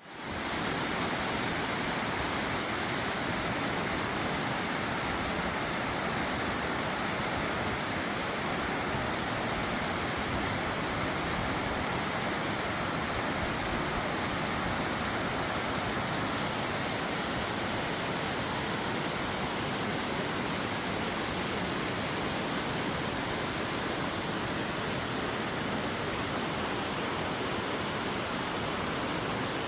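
Steady rushing water, one constant even noise with no breaks, that begins abruptly.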